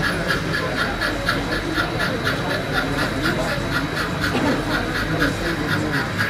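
Model steam locomotive's sound unit chuffing steadily, about four beats a second, as it runs, over a murmur of voices in the hall.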